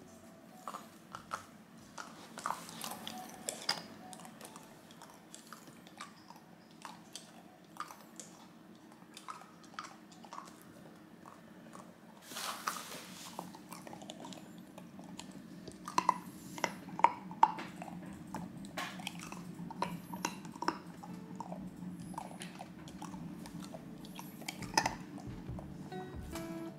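Samoyed puppy chewing and crunching frozen yogurt-and-banana ice cubes, with irregular sharp crunches and bites. The sharpest come in a cluster a little past the middle.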